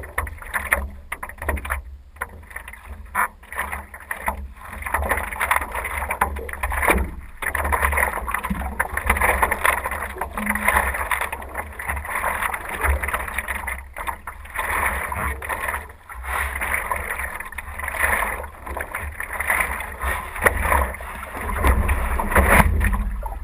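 Double-bladed paddle strokes splashing and water sloshing against the hull of a small board, swelling in a steady rhythm of a stroke every second or two, over a low rumble of wind on the microphone.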